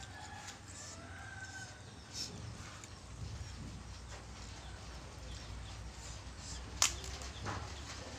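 Soft eating and mouth sounds from someone eating spicy instant-noodle soup with a broth-soaked cracker, over a low hum. A sharp click near the end is the loudest sound, and faint short calls are heard in the first second or so.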